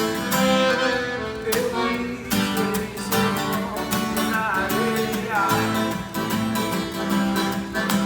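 Forró song played by a live band, with guitar to the fore over a steady beat.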